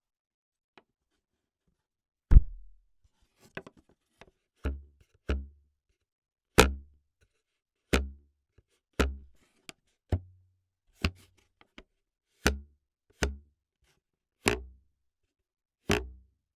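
A series of single sharp foley hits on a hard surface, about one a second and unevenly spaced, a dozen or so in all. Each is a crisp knock with a deep thud beneath and a short ring-out; the first hit is the loudest.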